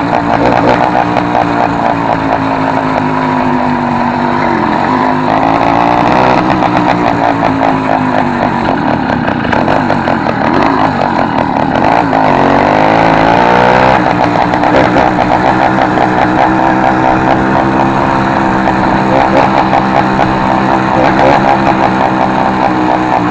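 Small engine of a motorized bicycle running loud through an exhaust whose original tip has been replaced by a soda-can lid. The revs dip and climb back twice.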